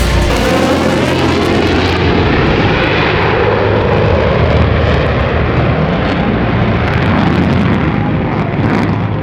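Fixed-wing aircraft engine noise, a loud steady roar of a plane flying past.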